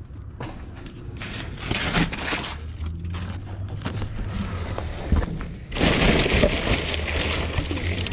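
Plastic bags, bubble wrap and snack packaging crinkling and rustling as hands rummage through trash in a dumpster, with cardboard crunching; it grows louder and denser about six seconds in.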